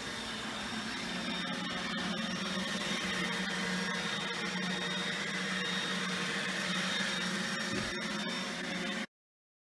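iRobot Roomba robot vacuum running, a steady motor hum with a high whine and scattered light clicks as it drives across the wooden floor. It cuts off suddenly near the end.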